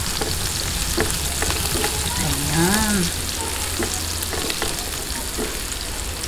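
Chopped garlic sizzling in hot oil in a nonstick frying pan as it is sautéed toward light brown, stirred with a silicone spatula that gives scattered light knocks against the pan.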